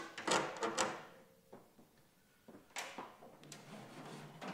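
Metal clanks and rattles from the aluminium lid and windscreen panels of a camp stove being folded open and set in place: a cluster of knocks with a short ring in the first second, then more knocks and rattling from about the middle.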